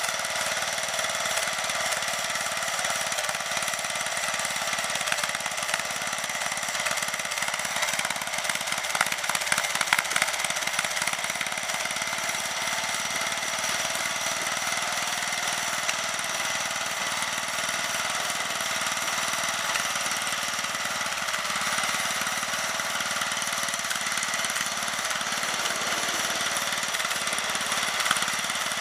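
Snapper LT11 lawn tractor's engine running steadily as the tractor drives along pushing its front plow blade. A short spell of clicking and clattering comes about eight to eleven seconds in.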